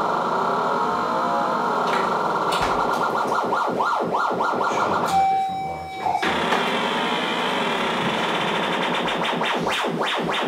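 Modular synthesizer playing a dense, shifting drone whose tone sweeps up and down continuously. About halfway through it drops out briefly to a single steady tone, then comes back brighter.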